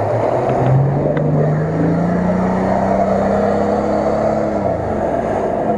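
Nissan Patrol 4x4 engine pulling under load as it wades through a muddy pond and climbs out onto the bank, the revs rising steadily and then easing off near the end. The mud tyres churn through water and mud.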